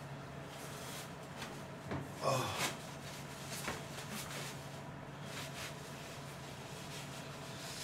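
Quiet room tone with a steady low hum, broken by a few faint knocks and handling noises, the loudest about two seconds in.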